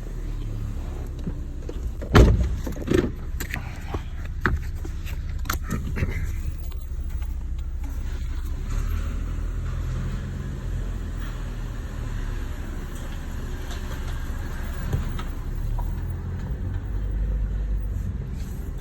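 2013 Chevrolet Sonic's four-cylinder engine idling steadily shortly after a cold start. A few sharp knocks break in over the first several seconds, the loudest about two seconds in.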